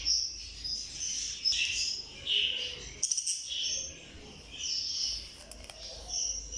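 Budgerigars chirping and chattering in a quick string of short high chirps.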